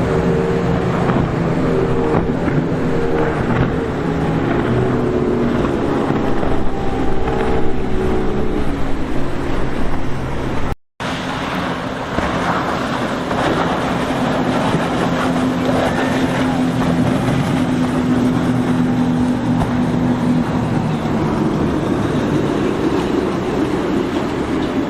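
Motorboat engines running as boats pass through the inlet, with wind and water noise, and a slight drop in engine pitch as they go by. Cut off abruptly about eleven seconds in, then another boat's engine is heard droning steadily.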